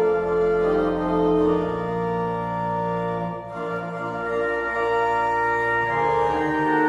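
Church organ playing slow, held chords over a sustained bass note, the harmony changing every second or so, with a brief lift between chords about three and a half seconds in.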